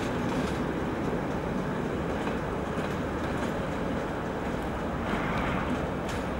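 British Rail Class 37 diesel locomotive running light engine past, with a steady engine drone and rail noise.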